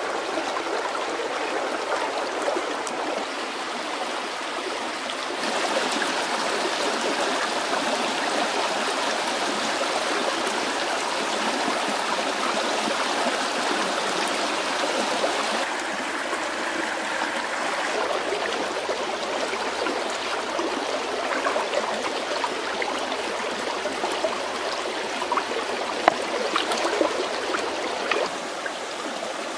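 Shallow stream running over stones: a steady rushing and trickling that shifts slightly in level a few times, with a single sharp click near the end.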